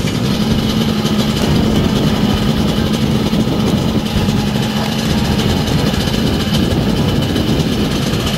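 Small one-person helicopter hovering just above the ground, its engine and rotor running at a steady drone with a strong low hum.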